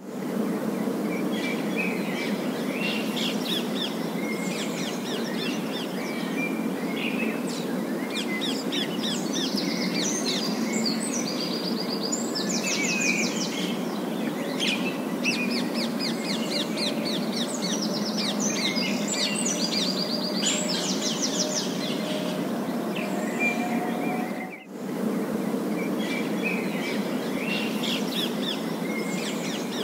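Rose-ringed parakeets calling, a fast overlapping chatter of trills and sharp chirps, over a steady hum of city traffic.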